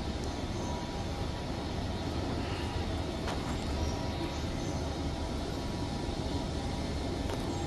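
Hansun HS200(M) step-type escalator running upward: a steady, noisy low mechanical rumble from the moving steps and drive, with a faint steady high tone above it.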